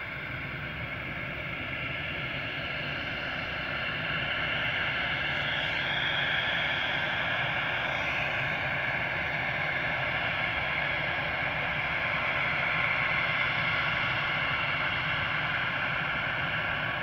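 Embraer E190's twin turbofan jet engines spooling up for takeoff: a steady jet noise with high whining tones, growing louder over the first six seconds and then holding.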